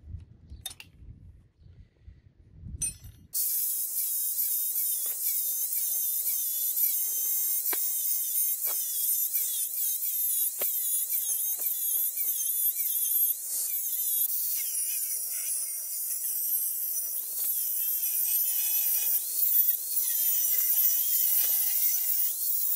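Faint low knocks at first, then an angle grinder starts abruptly about three seconds in and runs steadily with a high whine as its disc cuts into steel bar stock.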